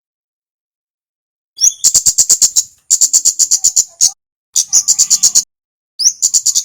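Kemade bird song: after a short pause, four bursts of rapid sharp high chips, about eight to ten a second, each burst lasting about a second.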